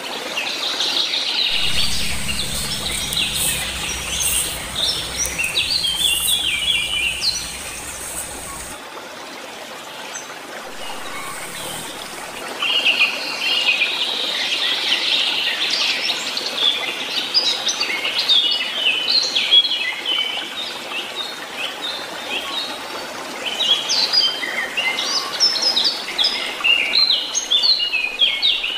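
Several wild birds chirping and calling over steady outdoor background noise, with a low rumble underneath for the first several seconds that cuts off suddenly.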